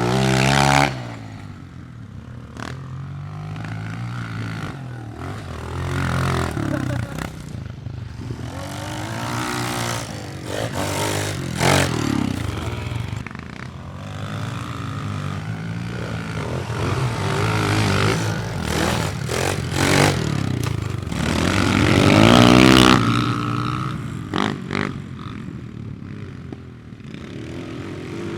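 Small four-stroke pit bike engines revving up and down again and again, the pitch climbing and dropping with each throttle blip. The loudest surge comes about 22 seconds in.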